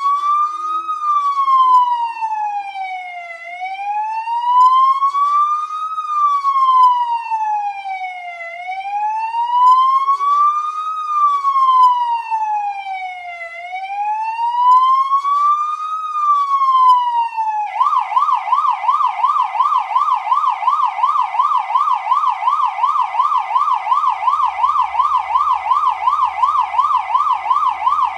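Electronic police car siren in wail mode, its pitch rising and falling slowly about every five seconds. About two-thirds of the way through it switches abruptly to the fast yelp, warbling up and down about four times a second.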